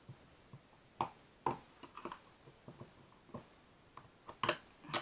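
Scattered sharp clicks and knocks of a screwdriver prying at and handling a plastic tape measure casing. The strongest is a quick pair of knocks near the end.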